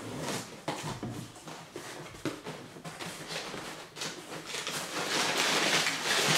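Cardboard box flaps being pulled open and handled, with scattered short scrapes and knocks. About five seconds in, loud crinkling of crumpled brown packing paper being pulled out of the box.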